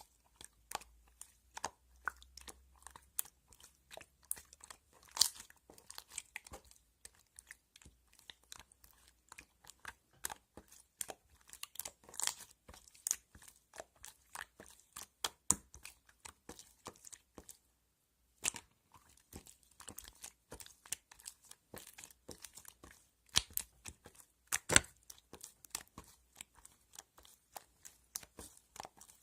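Close-up handling noises: many small, irregular clicks, taps and crinkles, with a short pause a little past halfway.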